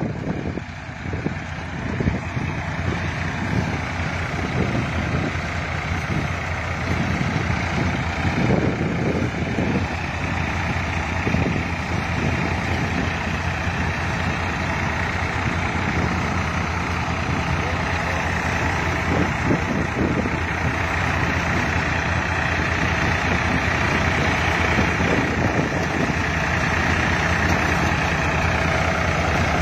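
Tractor engine running steadily, driving a mounted digger's slatted elevator conveyor that carries uprooted plants up and off the back, with irregular knocks in the first half.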